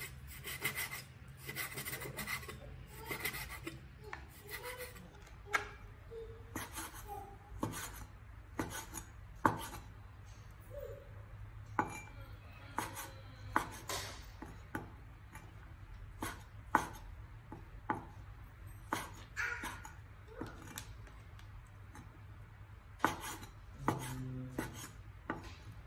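Large kitchen knife slicing on a wooden cutting board, the blade knocking against the board: a quick run of strokes through sliced beef in the first few seconds, then slower, irregular knocks as black mushrooms are sliced.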